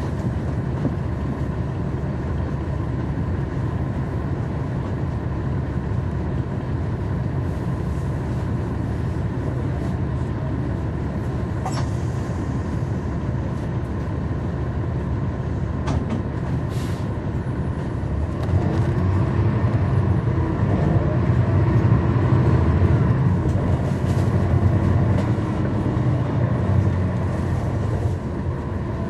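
Cummins ISL9 diesel engine of a NABI 40-SFW transit bus heard from on board, running steadily. A little past halfway it grows louder and deeper for several seconds, then eases off near the end.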